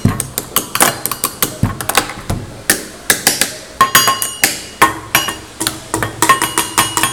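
Fingers tapping and knocking on a wooden tabletop in quick, irregular strikes, several a second. From about four seconds in, many of the strikes ring with a short, clear tone.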